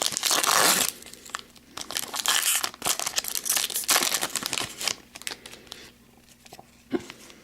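Foil wrapper of a hockey card pack being torn open and crinkled by hand, loudest in the first second, then lighter rustling and the cards being handled, tapering off after about five seconds.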